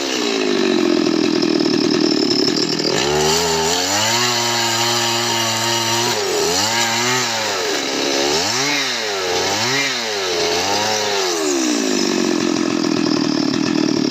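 Chainsaw engine running at high revs, dropping to a much lower pitch about three seconds in. It then revs up and down about four times before settling back to high revs near the end.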